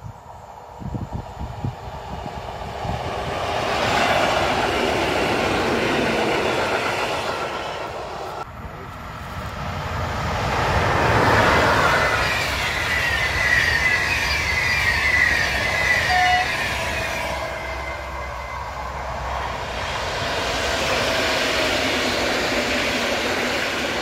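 Three electric trains passing at speed on an electrified main line, one after another. First a regional electric multiple unit rushes past. Then, from about eight seconds in, an EP09 electric locomotive hauling Intercity coaches passes close with a high whine over the rumble, and near the end another regional multiple unit passes. Each pass swells and fades.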